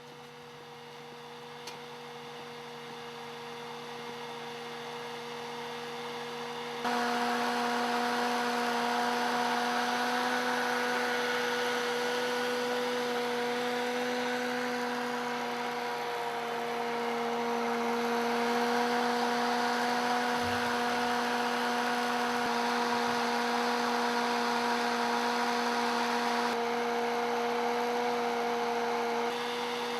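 Vintage DeLuxe Admiral 12018 electric hair dryer running: a steady motor hum that builds over the first several seconds, then steps abruptly louder with a rush of blown air about a quarter of the way in, easing down a little near the end.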